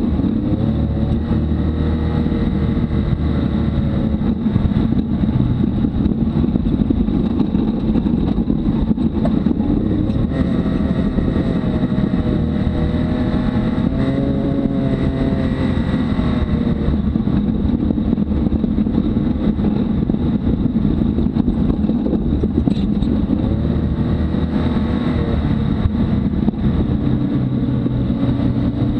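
Can-Am Maverick X3 side-by-side's turbocharged three-cylinder engine running under varying throttle on a dirt trail, its pitch rising and falling, heard from inside the cab with steady rumble from the rough trail and drivetrain.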